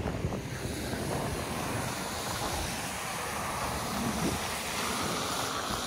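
A van driving past on a wintry street, a steady rush of engine and tyre noise, with wind on the microphone.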